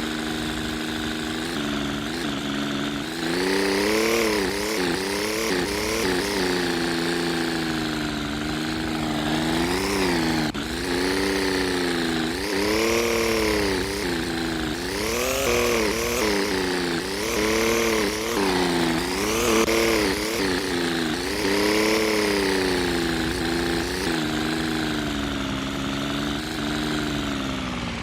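An engine revving up and down over and over, its pitch rising and falling about every second or two.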